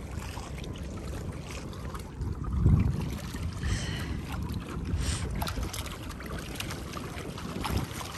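Wind buffeting the microphone over water sloshing against a small boat's hull, with a stronger gust about two and a half seconds in.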